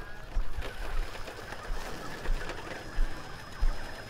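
Wind buffeting the microphone in irregular low thumps, over a faint steady high-pitched whine and a light hiss.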